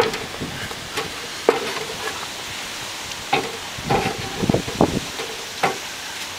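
Oil-soaked wooden rigging blocks being handled in a metal tin: irregular sharp knocks and clatters as the blocks bump against the tin's sides and each other.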